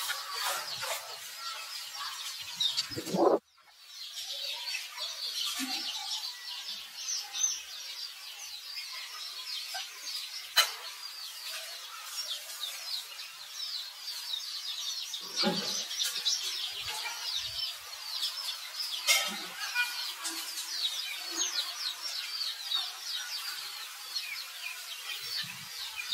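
Birds chirping continuously, many short high calls overlapping, with a brief louder sound about three seconds in that cuts off abruptly into a moment of silence, and a few scattered soft knocks.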